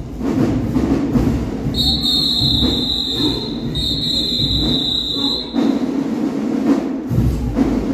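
A whistle blown in two long, high blasts over loud, steady background noise. The first blast starts about two seconds in; the second stops about five and a half seconds in.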